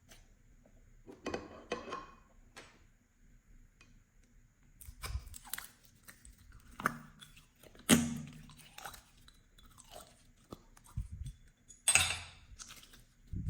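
Slime being squeezed, stretched and mixed by hand: irregular wet squelches and crackly pops, the two loudest about eight and twelve seconds in.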